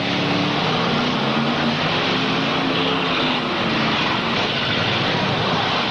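Demolition derby cars' V8 engines revving hard, their pitch rising and falling over a dense wash of noise.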